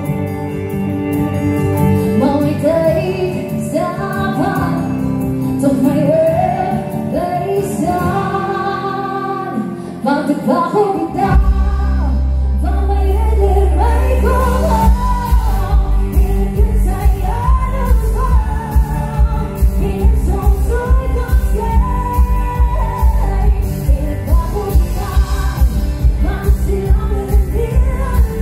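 A woman singing live into a microphone over amplified backing music. About eleven seconds in, heavy bass comes in, and a steady beat follows a few seconds later.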